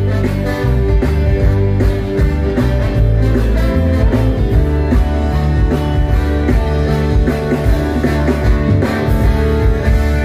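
Live band playing an instrumental stretch of a song: electric guitars over bass and drums, with keyboard, at full volume.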